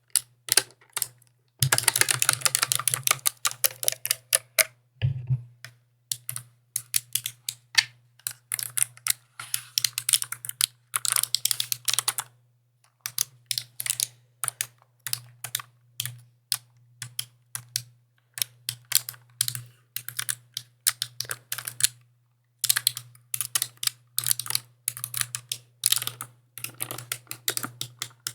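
Mechanical keyboard keys clacking in runs of rapid typing broken by short pauses, with the fastest flurries about two seconds in and again near the end.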